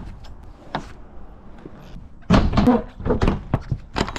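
Metal clanks and knocks from a lorry trailer's rear door locking bars being worked by hand, with a few single clicks at first and a loud run of clanks about two seconds in.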